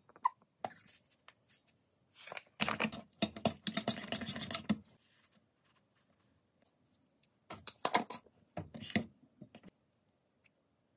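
Kitchen utensils clicking and scraping while a garlic-bread spread is made: a few light clicks, then about two and a half seconds of quick scraping, and a second, shorter spell of scraping later.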